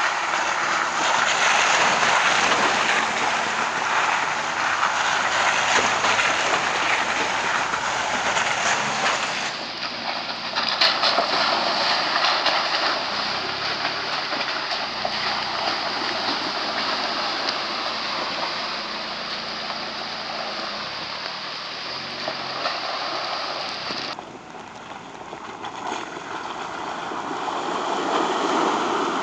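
Ford Bronco Everglades off-roaders driving through muddy water, with the engine running under steady splashing and water noise from the tyres. The sound changes abruptly twice, dipping quieter about two-thirds of the way in, then builds again near the end.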